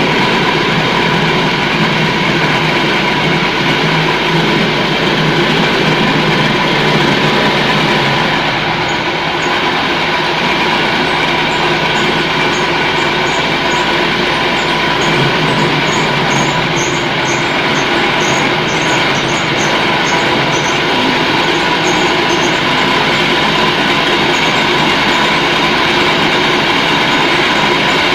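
Size-70 bakso meatball grinding machine running steadily: continuous mechanical grinding noise with a steady whine.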